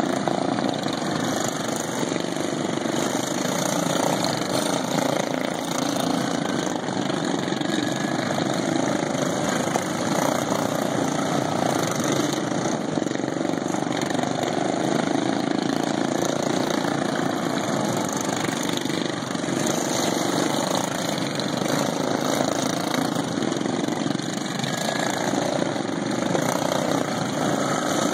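A pack of racing lawn mowers running steadily around the track, their factory-stock single-cylinder engines governed to 3650 rpm, swelling and fading a little in level.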